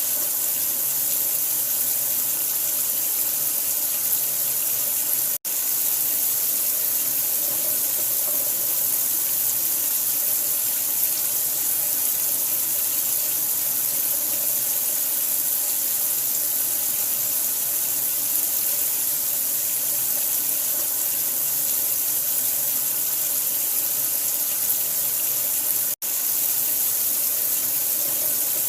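Running water, a steady hissing rush with most of its energy high up, like a tap running. It cuts out for an instant twice, about five seconds in and near the end.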